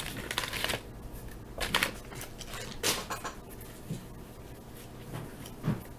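Waxed-paper wrapper of a baseball card wax pack rustling for about the first second as the pack is torn open, then a few soft clicks and swishes of the cardboard cards being handled and slid apart.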